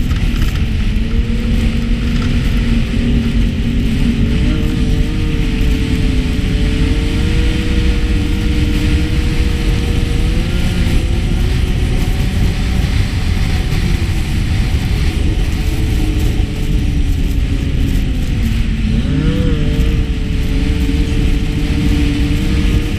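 Snowmobile engine running at steady trail speed over a heavy low rumble. About two-thirds of the way through, the engine speed drops briefly and then picks back up.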